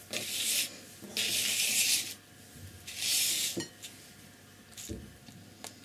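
A sheet of drawing paper sliding and being turned on the tabletop: three rubbing swishes, each under a second, followed by a couple of light taps near the end.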